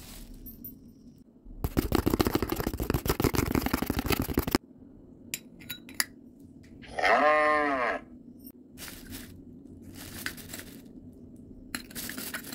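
Hands handling small diorama pieces: about three seconds of rapid rustling and crackling, then scattered light clicks and clinks. About seven seconds in comes a single call, about a second long, that rises and falls in pitch, like a bleat.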